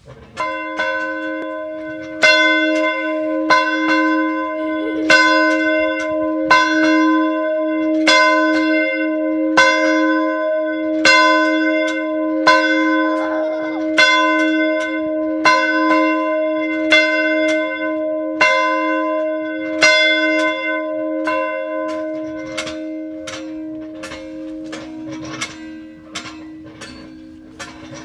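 A single church bell, swung by its wheel, tolling about once every second and a half, with a sustained hum ringing on between strokes. Near the end the strokes come quicker and weaker. It is rung as a call to prayer.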